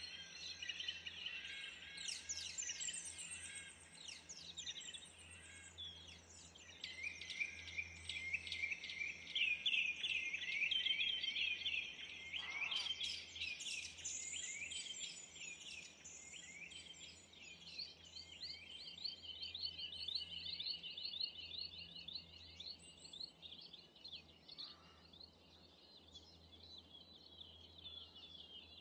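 Several small songbirds singing and calling over one another, with high chirps and trills. In the second half one bird keeps up a long run of quick repeated notes. A faint steady low hum lies underneath.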